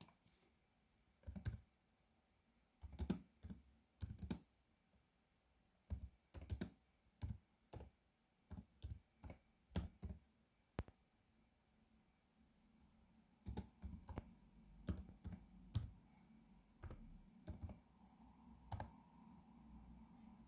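Typing on a computer keyboard: faint, irregular key clicks in short runs with a pause partway through. A faint low hum comes in during the second half.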